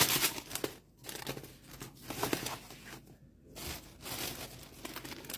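Shopping bag and product packaging crinkling and rustling as groceries are taken out and handled, in irregular bursts, loudest at the start.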